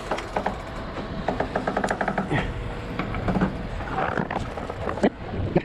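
Sailing yacht's winch being cranked to hoist a crew member up the mast, its pawls clicking in quick runs with knocks and creaks from the rigging and hull.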